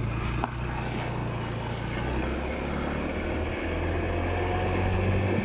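Scooter engine running steadily under way, its note changing about three and a half seconds in, with one small click about half a second in.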